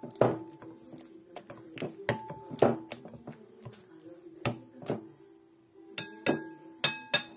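Stainless steel potato masher mashing bananas in a glass bowl, knocking irregularly against the glass with ringing clinks, about ten strikes.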